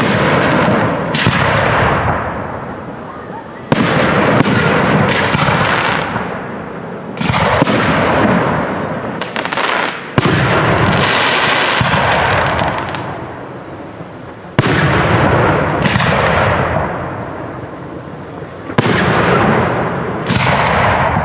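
Aerial firework shells bursting one after another, about every three to four seconds, each a sharp bang followed by a long rumble that fades away.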